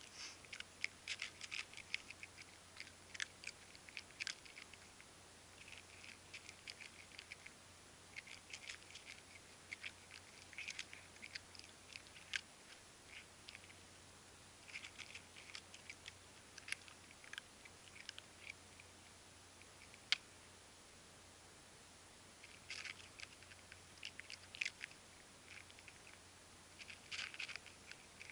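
Stray cats chewing their food, in runs of quick, sharp clicky crunches with short pauses between, and one sharp click about twenty seconds in.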